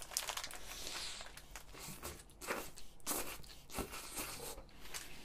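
A person biting into and chewing a pepperoni burger close to the microphone, with irregular soft crunches.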